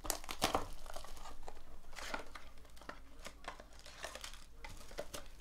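Clear cellophane shrink wrap being torn and peeled off a trading-card box, crinkling in quick irregular crackles that are loudest in the first couple of seconds.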